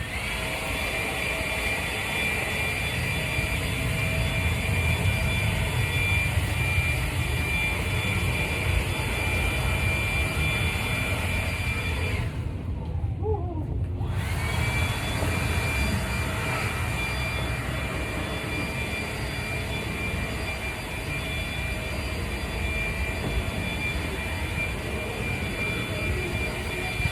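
Honda HRR walk-behind lawn mower engine running steadily under load while shredding leaves. A high-pitched whine rides over it; the whine cuts out about twelve seconds in and winds back up about two seconds later.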